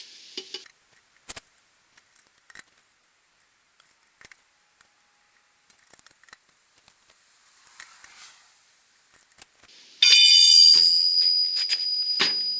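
Light metallic clicks and clinks, typical of a 4-way lug wrench and lug nuts, scattered for about ten seconds. Then a loud, steady, high-pitched tone with overtones starts suddenly and holds.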